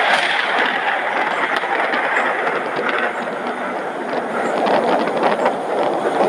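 Heavy rain falling steadily during a thunderstorm, with many separate drops striking close by.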